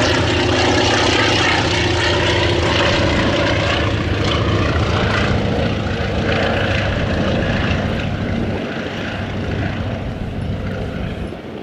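Antonov An-2's nine-cylinder radial engine, with the smaller engines of three Aero AT-3 light planes, running steadily as the formation flies past; the sound eases off over the last few seconds.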